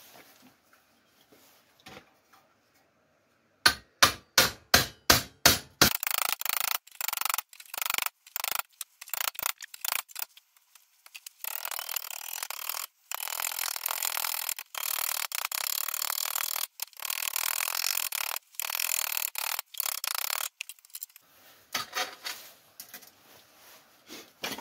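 Hammer blows on thin steel sheet as it is knocked down over two exhaust pipes clamped in a vise. About four seconds in comes a run of separate sharp blows at about four a second, then rapid, almost continuous hammering with short pauses.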